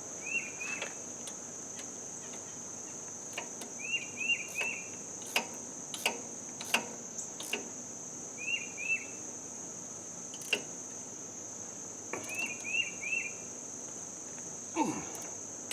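Sharp metallic clinks and taps of hand tools on the tractor as the alternator belt is levered tight and bolted, over a steady high cricket-like insect drone. A bird chirps in short quick runs of two or three notes several times.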